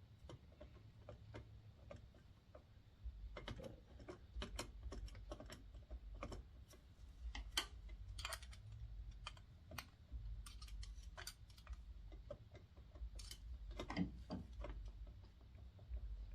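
Irregular light metallic clicks and knocks from a Honda CB700SC clutch outer being tilted and worked against the gears inside the engine case, as it is angled to clear the crankshaft gear. The clicks begin about three seconds in.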